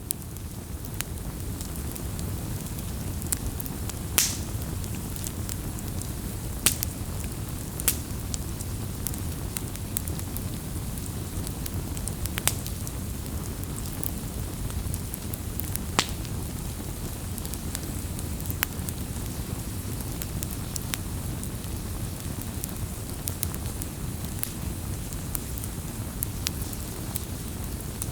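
Wood fire crackling: a steady low rush of burning with frequent sharp pops and snaps, the loudest about four, seven, eight, twelve and sixteen seconds in.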